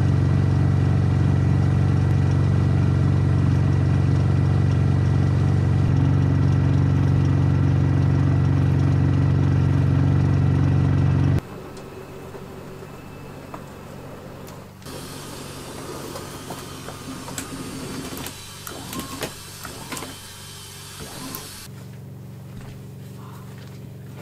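The camper's electric slide-out motor runs with a loud, steady hum for about eleven seconds, then stops abruptly. After that come faint clicks and knocks of things being handled, and near the end a low steady hum.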